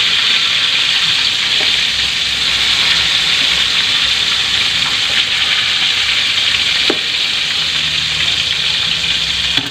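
Breaded chicken pieces frying in hot oil in a wok: a steady sizzle. A couple of faint knocks come as a knife prods the golden-brown pieces to check they are cooked through.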